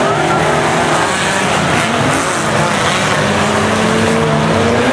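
Engines of several banger-racing cars running and revving together on the track, over a dense wash of track noise, with one engine's pitch rising near the end.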